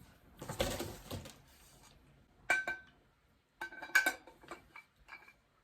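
Metal parts of a clothing rack clinking and knocking together as they are handled and fitted, with a brief rustling scrape about half a second in and several sharp, ringing clinks in the second half.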